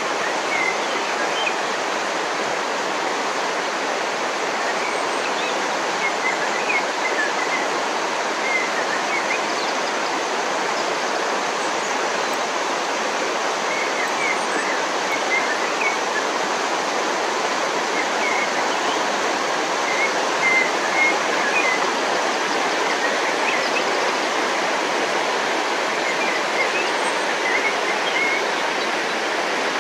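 Shallow mountain creek rushing over rocks and boulders: a steady, unbroken rush of running water.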